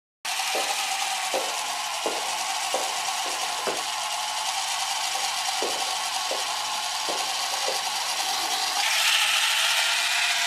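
AutoMee screen-cleaning robot running on a mobile phone screen: the steady whirr of its small motor and gears, with irregular light clicks, slightly louder near the end.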